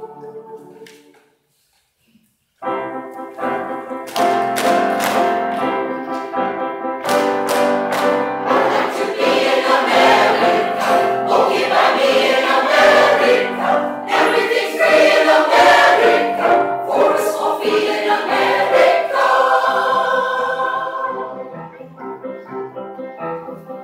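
Mixed choir singing in parts. The sound fades out about a second in and drops away completely for about a second and a half, then the choir comes back in full and stays loud before growing softer near the end.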